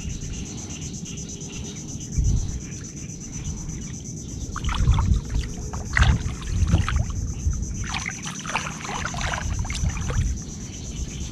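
Shallow swamp water sloshing and splashing as people wade and dig in the mud, with several dull thumps and a busier stretch of splashing near the end.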